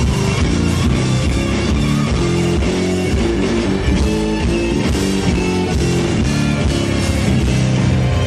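Live band playing loud through the PA: electric guitar over drum kit and hand percussion, with a line of low notes stepping under a steady beat.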